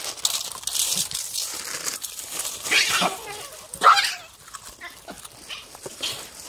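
Hamadryas baboons giving short, harsh screeching calls at close range, with two loud calls about three and four seconds in and fainter ones around them.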